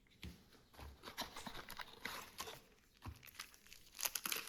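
Faint rustling and a few small clicks of packaging and small accessory parts being handled.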